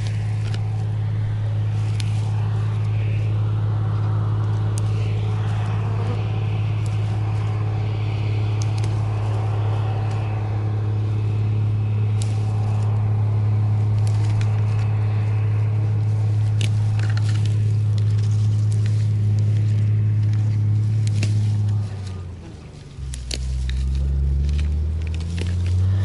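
A motor hums steadily with a clear low pitch. Near the end its pitch drops sharply and then climbs back up, like an engine slowing and revving again. Over it come many short clicks and rustles of St John's wort stems being snapped and picked by hand.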